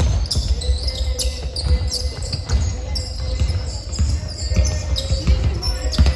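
Basketball game sounds: the ball bouncing on the court in repeated thumps, sneakers squeaking on the floor, and players' voices.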